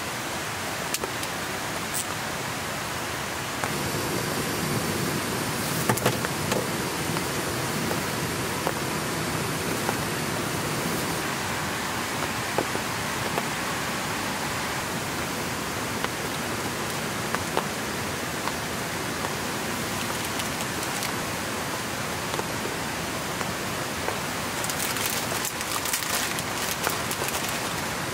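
Steady rain, a dense even hiss, with scattered sharp drops tapping close by. It grows a little louder about four seconds in, and there is a quick flurry of taps near the end.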